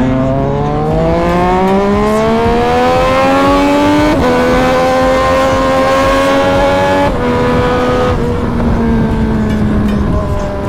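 Sport motorcycle engine accelerating hard through the gears: the pitch climbs for about four seconds, drops at an upshift, climbs slowly, drops at a second upshift about seven seconds in, then holds and eases off.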